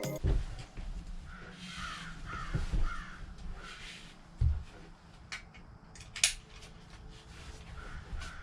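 A crow cawing in a quick series of harsh calls, with a few more caws near the end. Partway through come a dull thump and a couple of sharp clicks.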